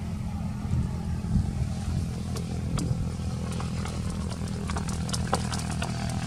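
Steady low drone of an engine running, with scattered sharp clicks and crackles from about two seconds in.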